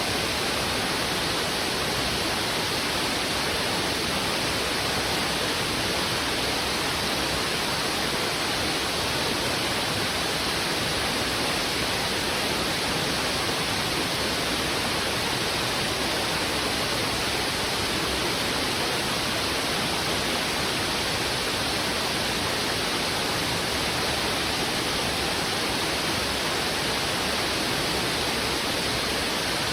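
Heavy river water rushing over rocks: a steady, even roar of flowing water that does not change.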